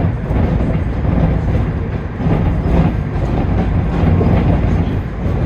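London Underground Northern line train (1995 Stock) running along the track, a steady low rumble with some clatter of the wheels, heard from on board.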